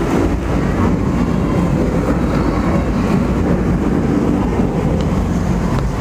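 Rainforest Cafe's simulated thunderstorm effect: a loud, steady low rumble of recorded thunder.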